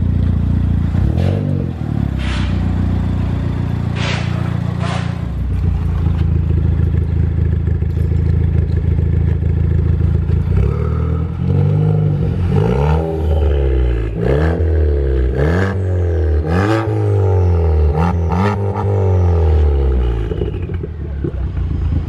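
Ford Fiesta ST's 1.6-litre turbocharged four-cylinder through a newly fitted KMS Hurricane dual-tip exhaust, idling steadily. It is blipped a couple of times with a few sharp cracks early on, then revved about six times in quick succession in the second half, each rev rising and falling back.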